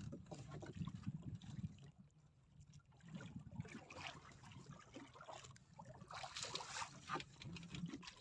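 Faint water sloshing and splashing around a small fishing boat, over a steady low rumble.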